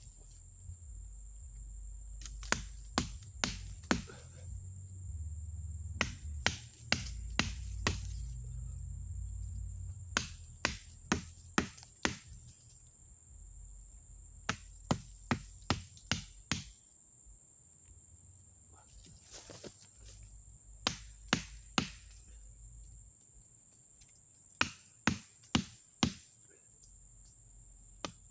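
A wooden baton hitting the spine of an Ozark Trail fixed-blade knife held against a thin tree trunk, driving the blade into the wood. It gives sharp knocks in quick bursts of three to six, about two or three a second, with short pauses between bursts.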